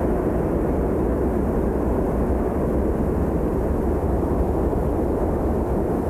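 Steady low rumbling outdoor noise, even throughout, with no distinct events or pitched sounds.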